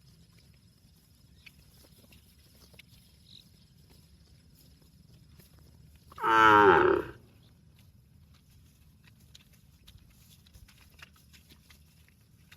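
A cow moos once, a loud call about a second long a little past the middle.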